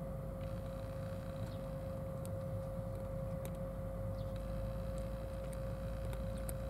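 A steady, low mechanical hum with one constant mid-pitched tone, like a motor or engine running, with a few faint scattered ticks.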